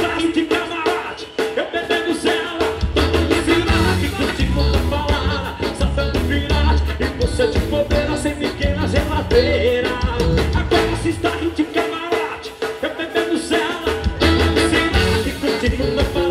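Live band playing sertanejo music: a male singer over electric bass and drums keeping a steady beat. The bass and drums drop back for a couple of seconds about twelve seconds in.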